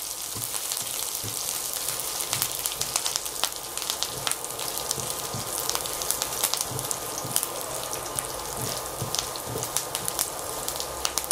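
Chopped garlic and curry leaves sizzling and crackling in hot oil in a nonstick frying pan, the garlic fried to a light golden colour. A silicone spatula stirs through it, with soft irregular knocks against the pan.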